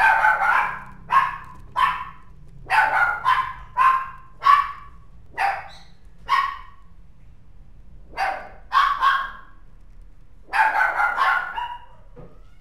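Small mixed-breed puppy barking in short, sharp yaps, singly and in quick runs of two or three, with pauses of a second or two between groups.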